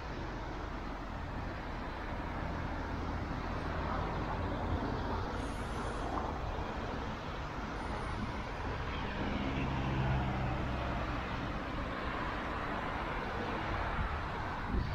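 Steady road traffic noise, with one vehicle's engine hum swelling and peaking about ten seconds in.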